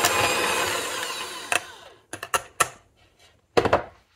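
An electric mixer whipping mashed potatoes at high speed, then winding down and stopping within the first two seconds. It is followed by a few short knocks and one louder clunk about three and a half seconds in.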